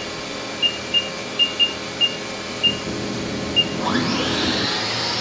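Short electronic beeps at uneven intervals as keys are pressed on the Haas control. About four seconds in, the Haas VF-3's spindle starts and spins up, a whine rising steeply in pitch toward its 7,500 rpm top speed.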